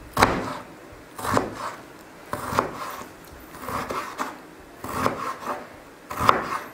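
Large kitchen knife cutting stacked raw potato slices into long thin strips on a wooden chopping board: about six strokes, roughly one a second, each a short scrape with a knock of the blade against the board.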